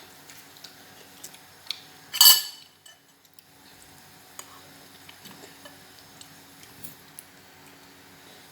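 Metal cutlery clinking against a dish while eating, with one loud ringing clink about two seconds in and faint small clicks scattered through the rest.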